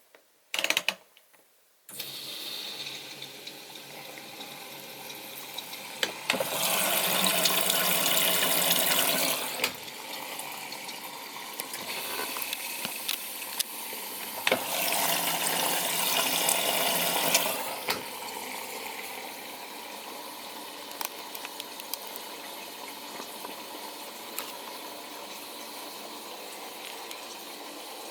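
A few sharp clicks, then a Miele Novotronic W921 washing machine starts filling: water runs in steadily as the wash begins. Twice partway through, the rushing of water grows louder for about three seconds, then drops back to the steady fill.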